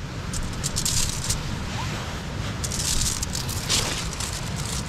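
Small screw-on propane-butane canister stove burning steadily under a pot, a continuous low rumble, with a few light clicks and rustles over it.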